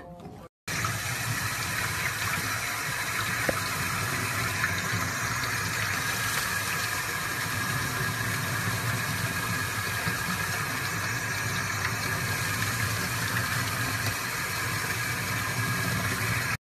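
Tap water running steadily from a sink faucet and splashing over a small puppy held under the stream. It starts abruptly about half a second in.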